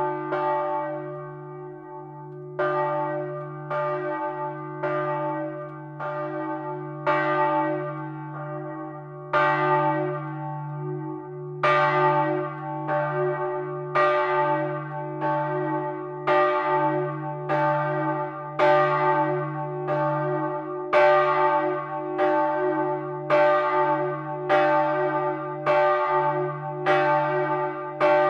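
A single bronze church bell being rung up in its timber belfry and heard close by. Its clapper strikes at uneven gaps of a second or more at first, then from about twelve seconds in comes louder and regular, a little faster than once a second. Each stroke rings on over a steady deep hum.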